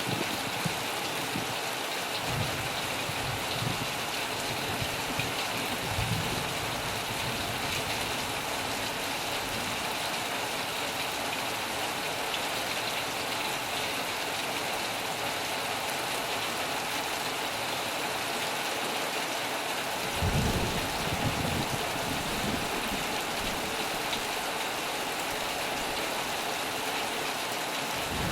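Heavy rain falling steadily on a metal roof, an even hiss, with a few brief low rumbles; the strongest comes about two-thirds of the way in.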